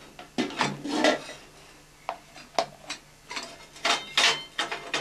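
Cookware being handled: pots, their plastic lids and dishes clattering and knocking together in a string of irregular short knocks.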